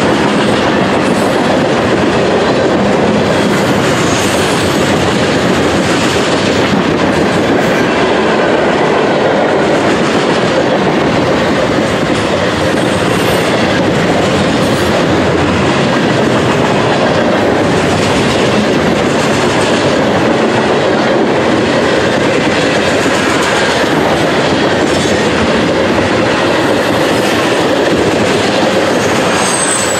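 Freight cars of a long mixed train (boxcars, lumber-loaded centerbeam flatcars, then tank cars) rolling past close by, a loud steady noise of steel wheels on the rails.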